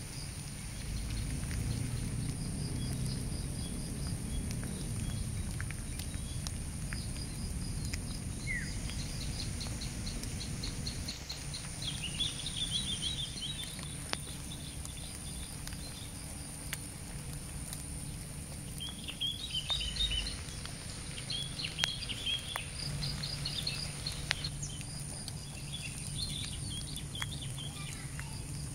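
Outdoor ambience after rain: birds chirping in several short bursts over a steady high-pitched whine, with a low rumble underneath and a few faint ticks.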